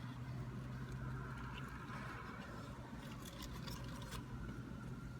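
Steady low hum inside a parked car's cabin, with a few faint crinkling ticks about three to four seconds in.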